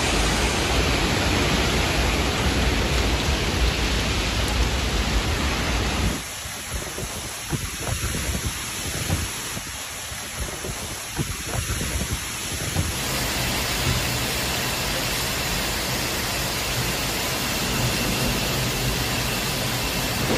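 Heavy rain and strong wind in a storm: a steady wash of noise. It drops to a quieter stretch about six seconds in and comes back up again about seven seconds later.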